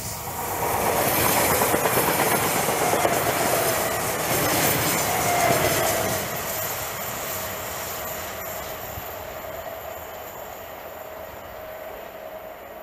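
Škoda RegioPanter class 550 electric multiple unit passing close at speed: rolling rail noise with a steady whine over it. It fades away from about halfway through as the train runs off round the curve.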